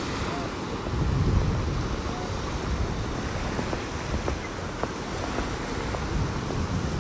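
Sea waves breaking and washing up a sandy beach, with wind buffeting the microphone as a low rumble.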